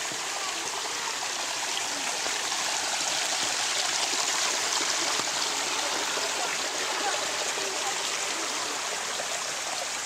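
Steady rush of running water from a spring-fed mountain stream flowing over rocks in a stone channel.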